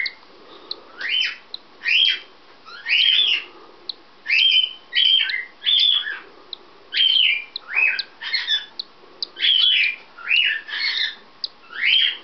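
Cockatiel calling over and over in short squawking whistles that rise and fall in pitch, about one or two a second.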